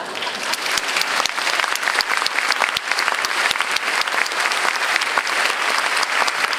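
Theatre audience applauding: dense clapping that swells up in the first second and then holds steady.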